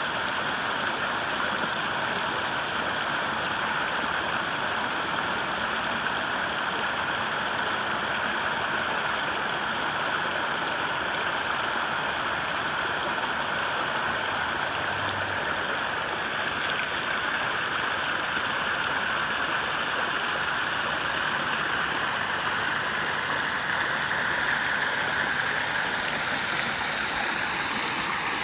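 Water rushing steadily in a stream, running after fresh rain.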